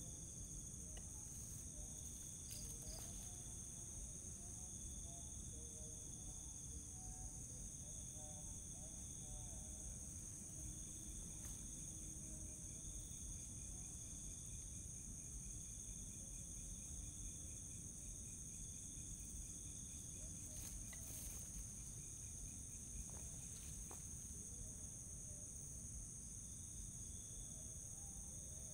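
Faint, steady chirring of crickets and other night insects over a low background hiss, with a few soft clicks scattered through.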